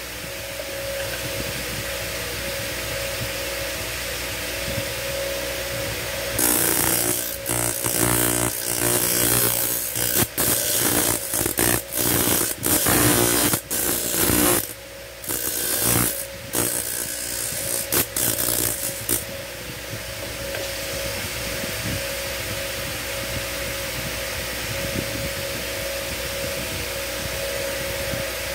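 Homemade motor-driven grinder running steadily. From about six seconds in until about nineteen seconds, small metal blanks are pressed against the spinning disc in a run of short, loud grinding passes, shaping the rough stock down for gaff blades.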